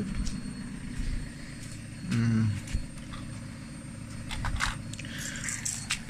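Light clicks and rustles of wiring and loose parts being handled, over a steady low background hum. A short wordless hum of the voice comes about two seconds in.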